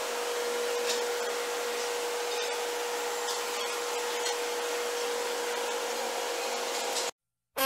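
Steady hum and hiss of running machinery with a steady whine in it; it cuts off suddenly near the end.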